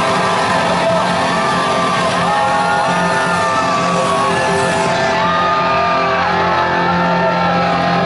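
Live rock band holding out loud sustained chords at the close of a song, with shouts and whoops from the crowd over it. The bright top of the sound drops away about five seconds in, leaving the held low tones.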